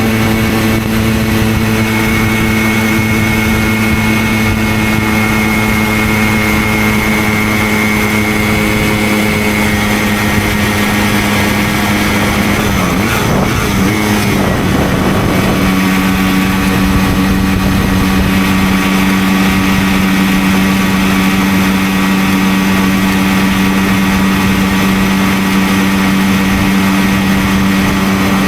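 Simson 50 cc single-cylinder two-stroke moped engine running steadily under way. About 13 seconds in, its pitch dips and wavers briefly, then settles at a slightly lower steady note.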